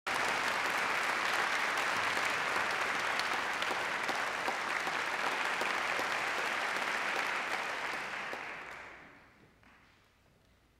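Audience applauding, a dense steady clapping that dies away about nine seconds in.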